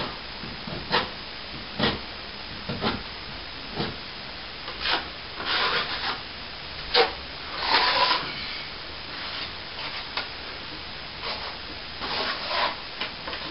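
Plasterer's trowel scraping across a setting plaster ceiling patch as it is polished smooth, in short strokes about once a second with a few longer sweeps.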